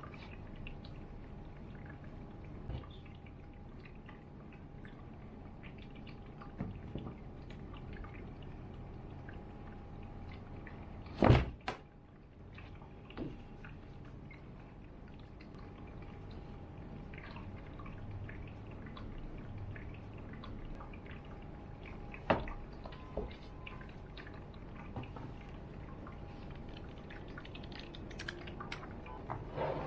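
Unboxing handling of a keyboard and its packaging: scattered light knocks and clicks, with one loud thunk about eleven seconds in and a few more knocks near the end, over a faint steady hum.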